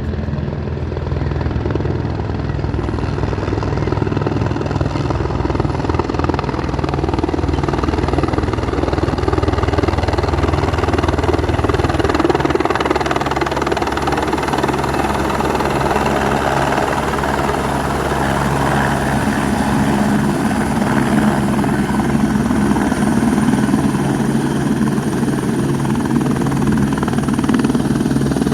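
Helicopter running steadily, its rotor beat and turbine engine loud and continuous, the low part of the sound shifting about twelve seconds in.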